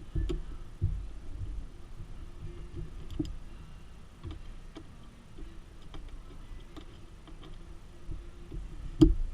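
Scattered small clicks and light knocks of hand tools and metal parts being handled, with one sharper knock about nine seconds in.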